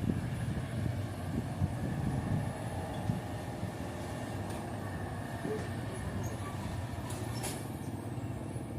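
Heavy diesel engine running steadily, a low rumble with a faint steady whine above it.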